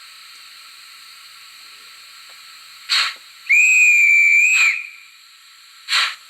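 Sound-decoder effects from the speaker of an ESU HO model of an SNCB Series 98 steam locomotive: a short burst of steam hiss, then one steady whistle a little over a second long, then another short hiss burst, over a faint steady hiss from the speaker.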